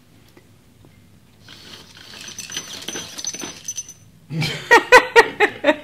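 A 3D-printed cat feeder's servo-driven worm drive turns for about two seconds, dropping dry kibble that rattles and clicks into a plastic bowl. About four seconds in comes a louder run of short, evenly spaced voice-like pulses.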